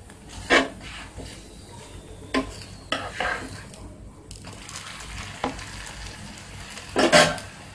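A spatula scraping and knocking against a tawa as a puran poli is pressed and turned over, a handful of short strokes with the loudest about half a second in and near the end. Oil and ghee sizzle faintly underneath throughout.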